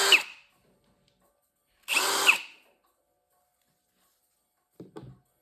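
Parkside 20 V cordless drill motor run in short trigger pulls: one burst tails off at the start, and another about two seconds in spins up, holds a steady pitch for under a second and winds down. A few faint short knocks near the end.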